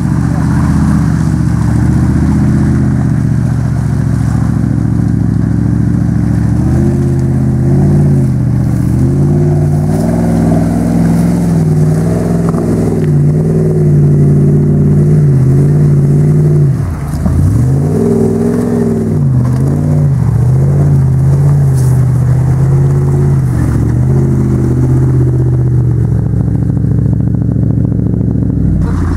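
Range Rover P38's engine revving hard under load as it pulls through deep mud, the revs rising and falling again and again. About seventeen seconds in the revs drop sharply and then climb back up.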